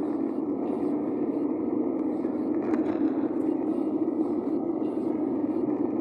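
Car cabin noise while driving: a steady low drone of engine and road noise heard from inside the car.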